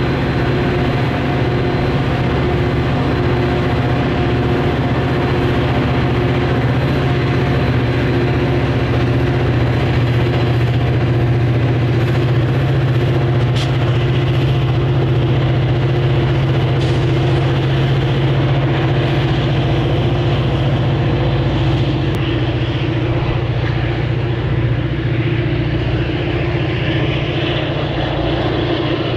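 Diesel locomotive of a Metra commuter train running steadily, a loud, even drone with a low hum that holds throughout.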